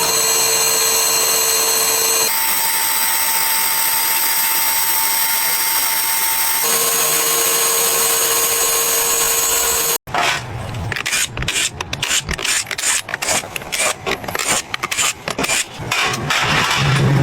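Workshop power-tool noise. A steady high-pitched whine changes its pitch abruptly twice. After a sudden cut about ten seconds in come irregular, choppy rasping strokes.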